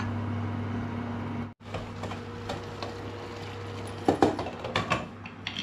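A steady low hum, broken by a sudden cut about one and a half seconds in, then a glass lid being lifted off a steel cooking pan, with a few sharp clinks and knocks near the end.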